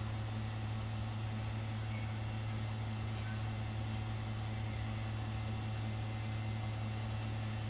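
Daikin VRV IV outdoor unit running, a steady low hum with no change in pitch or level.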